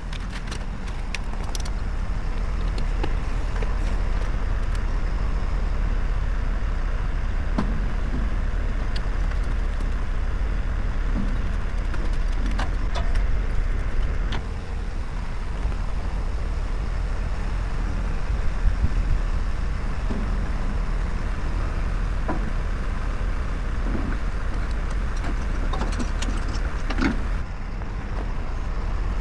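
A steady low engine running, like heavy equipment on a jobsite, with scattered short knocks and clanks over it and a cluster of knocks about 26 seconds in.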